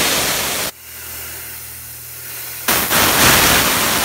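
High-pressure air hissing out of the bleed valve on a Tuxing PCP air compressor's filter block, venting pressure after the fill. The hiss is loud, drops off sharply about a second in, then comes back loud again near three seconds.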